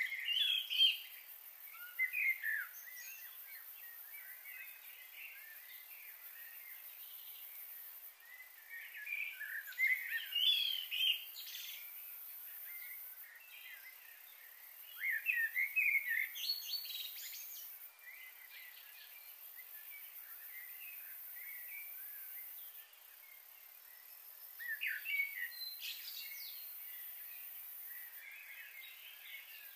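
Birds chirping in short clusters every several seconds over a steady high-pitched hiss.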